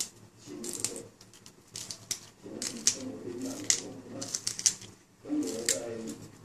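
Kangkong (water spinach) stems being snapped and broken by hand, a quick irregular series of sharp crisp snaps.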